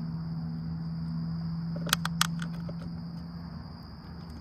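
Outdoor ambience of insects trilling steadily in the grass, with a low steady hum beneath that fades out about three and a half seconds in. Two sharp clicks about two seconds in.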